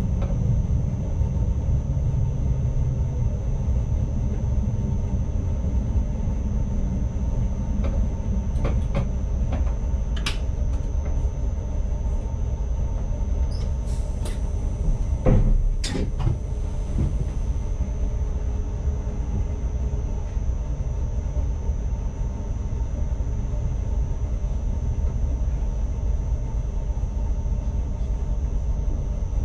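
Cab running noise of an ICMm electric multiple unit under way: a steady low rumble of wheels on track, with a cluster of short knocks and clicks in the middle, the loudest about fifteen seconds in, over a faint steady high whine.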